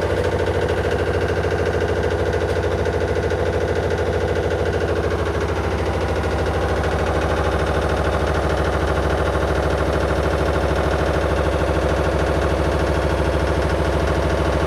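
Electrolux LE1000-2 washing machine running: a loud, steady mechanical hum with a fast, even pulsing, its mid-pitched tones shifting slightly about five seconds in.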